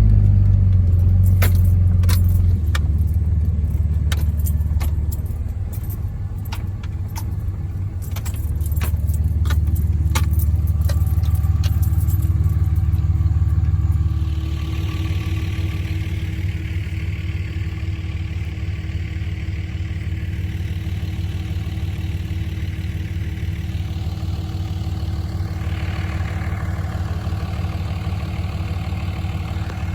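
A motor vehicle's engine running steadily, with many sharp rattles and clicks over roughly the first twelve seconds, then a quieter, even run.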